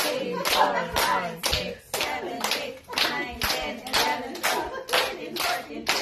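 A small group of people clapping in unison to a steady beat, about two claps a second, with voices heard between the claps.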